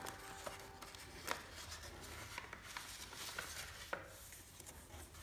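A sheet of lined notebook paper being folded and creased by hand against a wooden tabletop: faint rustling with a few sharp crinkles, the loudest about a second in and again near four seconds.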